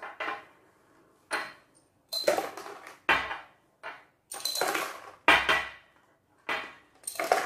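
Small glass jars clinking and knocking on a tabletop as they are handled and small blue pieces are moved between them: about eight separate clinks and knocks, some with a short glassy ring.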